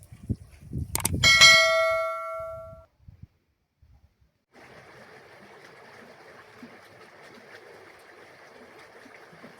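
A metal object struck once, ringing like a bell with several clear tones that die away over about a second and a half, after a few low thuds. Then a pause, and a faint steady hiss.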